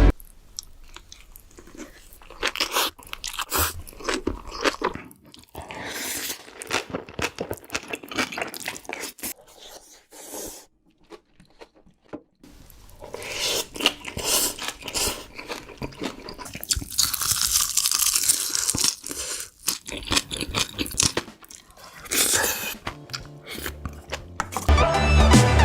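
Close-miked chewing of big mouthfuls of bibimbap, with crunchy, wet bites and chewing. The chewing stops for about two seconds partway through. Music comes in near the end.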